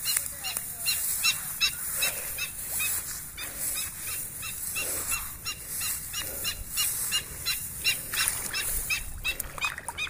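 Black-winged stilt calls: short, sharp yelping notes repeated about three times a second.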